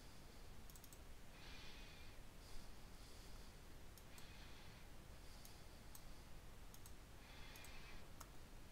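Faint computer mouse clicks, scattered single clicks and quick doubles and triples, with a few soft breaths between them.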